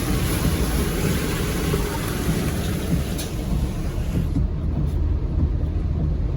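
A car driving in the rain: a steady low rumble of road and engine noise under the hiss of rain, the hiss thinning about four seconds in.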